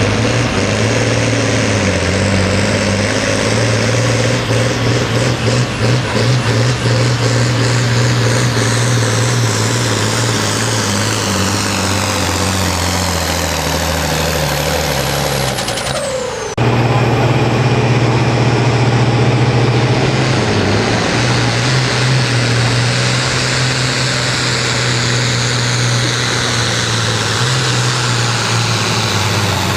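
Diesel pulling tractors at full throttle, hauling a weight-transfer sled. The engine note sags lower over the first half as the tractor lugs down under the load, then breaks off abruptly and a second tractor takes over, running hard at a steady higher pitch. A high whistle glides down at the break and again near the end.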